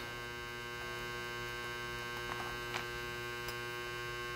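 Steady electrical mains hum, with a few faint light clicks between about two and three and a half seconds in as small watch parts and tweezers are handled.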